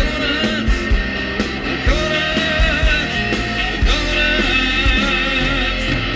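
Live blues-rock band playing: saxophone and electric guitar over bass and drums, with a regular kick-drum beat.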